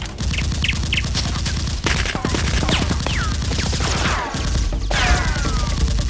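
Rapid bursts of automatic gunfire sound effects dubbed over toy blasters, with bright metallic pings falling in pitch between the bursts, over a low steady music bed.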